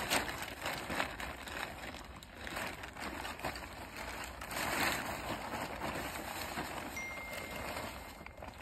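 Synthetic tent fabric rustling and crinkling as it is lifted, shaken and gathered up while a tent is being packed away.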